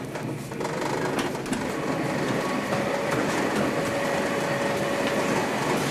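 Passenger carriage of a diesel-hauled train running along the line, heard from inside: a steady rumble and rattle of wheels on rail. A faint steady tone joins in about three seconds in.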